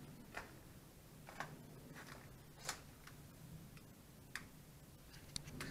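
Faint footsteps on twigs and debris: light, sharp clicks at irregular spacing, about one a second, with a quick pair near the end, over a low steady hum.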